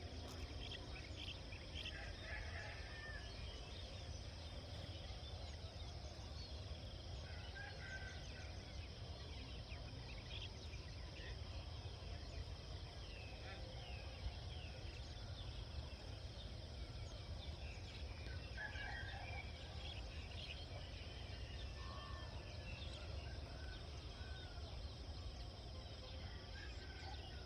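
Rural outdoor ambience: a continuous high insect drone with scattered short bird calls and a low steady rumble underneath.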